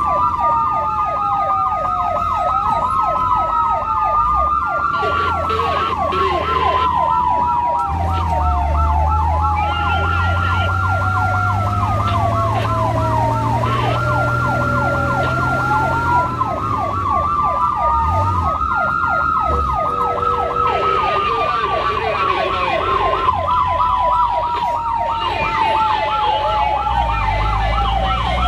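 Fire and rescue response sirens sounding continuously: a fast yelp sweeping up and down several times a second, overlaid with a slower wail that glides down and climbs back up again. Underneath runs the low rumble of the vehicle's engine.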